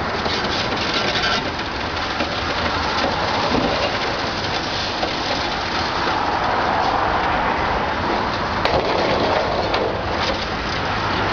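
Concrete and rubble crunching and pattering down as a high-reach demolition excavator's attachment breaks into a building wall, over the machine's steady engine hum, with one sharp crack late on.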